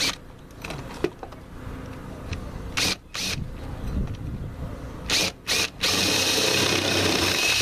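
Electric drill fitted with a masonry bit: a few short bursts on the trigger, then from about six seconds in running steadily with a whine as it starts boring into stucco.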